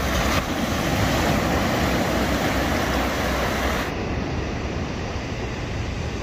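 Small waves of surf washing in and out over the sand in a steady rush, with wind rumbling on the microphone. About four seconds in, the high hiss drops away and the rush goes duller and a little quieter.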